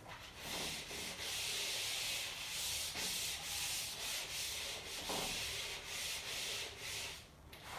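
A chalkboard eraser rubbed back and forth across a chalkboard, wiping off chalk writing in repeated strokes; the scrubbing hiss stops about seven seconds in.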